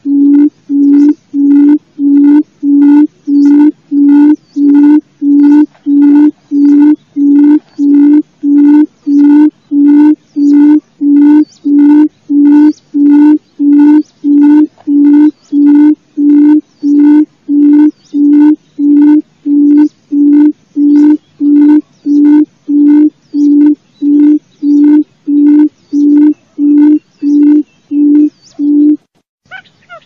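Quail lure call used for trapping: a long, even series of low hooting notes, about three every two seconds, each note alike in pitch and length, stopping suddenly about a second before the end.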